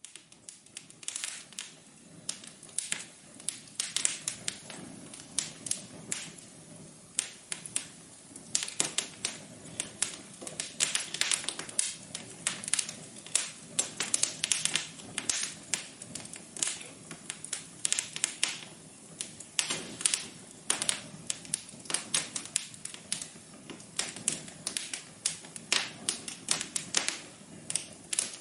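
Wood fire crackling in a fireplace: irregular sharp pops and snaps, several a second, over a soft hiss.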